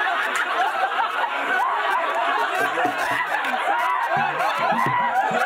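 Several people chatting over one another and laughing.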